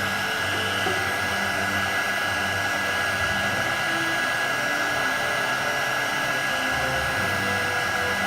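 Heat gun blowing steadily, a constant rushing noise with a thin high whine, as it softens the glue under a phone's glass.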